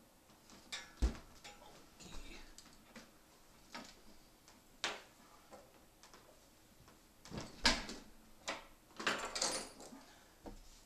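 Scattered knocks and clatters as a flat-screen LCD TV is handled and moved on a wooden table, the sharpest knock about a second in. A brief scraping rustle comes late on.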